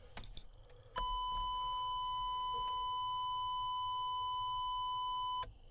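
An older vehicle's interior warning buzzer sounds one continuous steady tone for about four and a half seconds. It starts about a second in and cuts off suddenly near the end.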